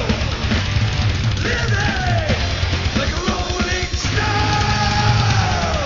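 Heavy metal song: a full rock band of drums, bass and distorted guitar, with a shouted vocal line whose notes slide down at the ends of phrases.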